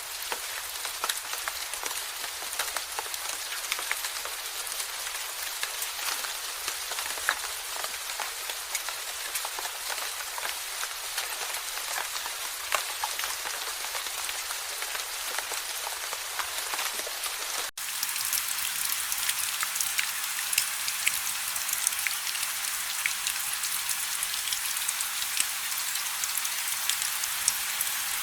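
Steady rain falling, with many individual drops pattering. About two-thirds of the way through there is a split-second gap, after which the rain is slightly louder and brighter.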